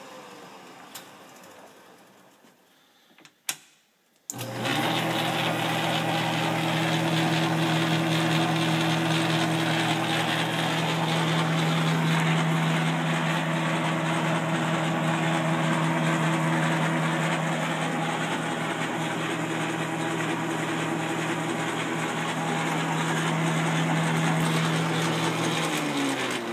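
1950 Craftsman 12-inch metal lathe with its half-horsepower electric motor: it winds down at first, then after a sharp click and a knock it starts about four and a half seconds in and runs steadily with the quick-change gearbox gears engaged, a steady hum under a light gear chatter. It is switched off near the end and spins down.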